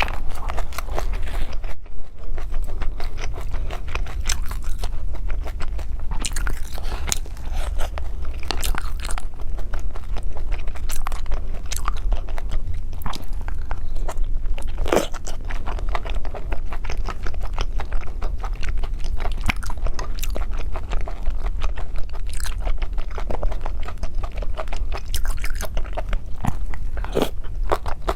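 Close-miked mouth sounds of someone eating: steady chewing and biting with many small crunches and wet clicks, one louder crunch about halfway, over a constant low hum.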